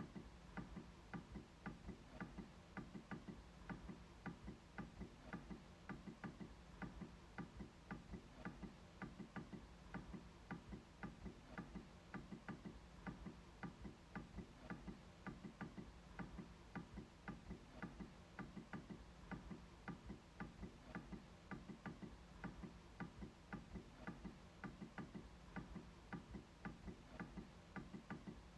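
MacBook trackpad being clicked over and over in a quick, even rhythm of faint, sharp clicks.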